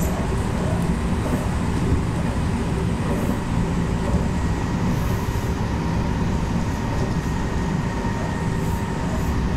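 Meitetsu electric train running at speed, heard from inside the front car: a steady rumble of wheels and running gear with a faint steady motor hum.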